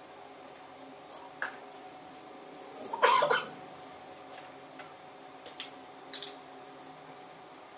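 One short cough about three seconds in, the loudest sound here, with a few faint clicks of hand tools on motorcycle parts before and after it.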